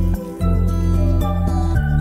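Instrumental background music with sustained notes over a steady low bass, shifting to a new chord near the end.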